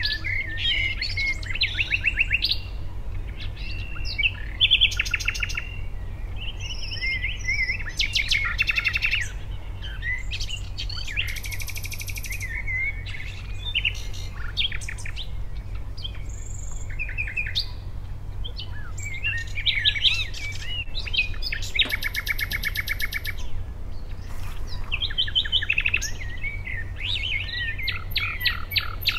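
Birds singing: many quick chirps, whistled notes and fast trills, over a steady low hum.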